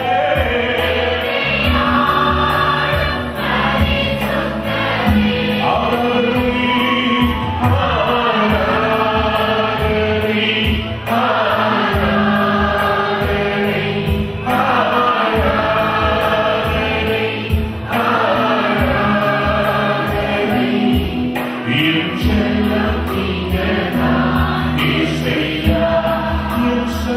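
Christian worship song in Tamil: a man singing lead into a microphone while a group of voices sings along, over instrumental accompaniment with steady low notes. The singing comes in phrases of a few seconds each.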